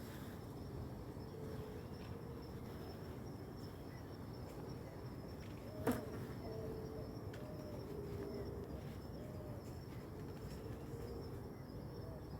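Forest insects calling: a steady, high, thin insect trill runs throughout, with fainter wavering buzzes lower down now and then. A single sharp click sounds about six seconds in.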